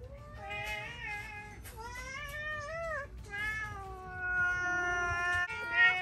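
Several domestic cats meowing one after another, their calls overlapping, with one long drawn-out meow in the second half: cats asking for their breakfast.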